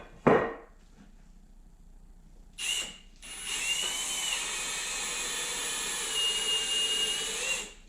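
Power drill boring a hole through soft wood: a brief blip of the trigger about two and a half seconds in, then the drill runs steadily with a high whine for about four seconds and stops.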